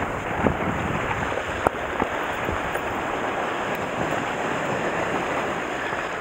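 Sea surf washing steadily against the shore rocks, with wind on the microphone and a few short, sharp clicks.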